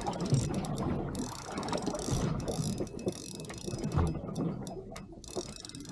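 Fishing reel being worked while fighting a hooked fish: a fast, dense rattle of gear and ratchet clicks.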